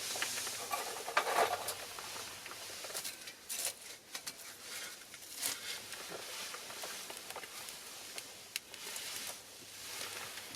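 Pine cones and cherry branches burning in a small metal fire pit, crackling with many irregular sharp pops over a steady hiss of flame.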